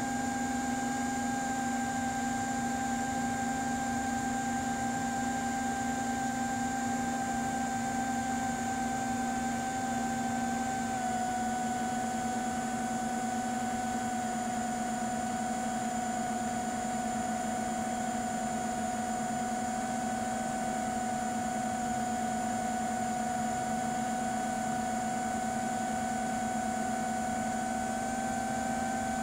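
FPV drone's brushless motors and propellers whining steadily in flight, heard from the onboard camera. The pitch drops slightly about eleven seconds in, as the throttle eases, and rises a little again near the end.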